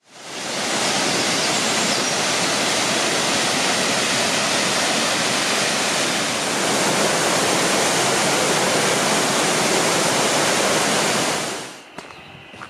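Waterfall: a steady, loud rush of falling water that fades in at the start and drops away suddenly near the end. A few footsteps on a dirt path follow, over a faint high steady tone.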